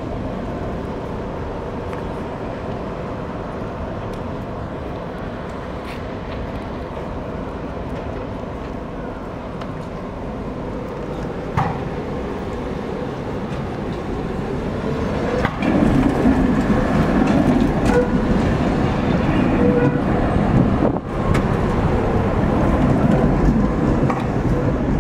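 Pair of Tatra T3SUCS trams pulling away from the stop and passing close by on curved track: wheels rolling on the rails with a steady motor whine, much louder from about two-thirds in. A single sharp click a little before halfway.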